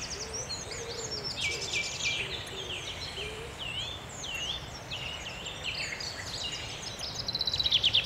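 Woodland songbirds calling and singing: a run of short chirps and curved whistled notes, then a fast trill near the end. Faint low notes sound in the first few seconds.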